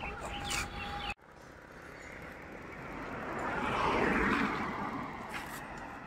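A road vehicle passing on the highway. Its noise swells to a peak about four seconds in and then fades away.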